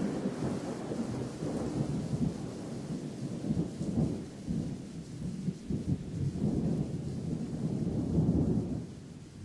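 Low, rolling rumble that surges and eases irregularly, then fades out near the end.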